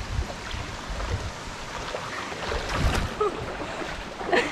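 River water rushing over rocks, a steady noise, with low rumbling bumps throughout and a few short sharp sounds near the end.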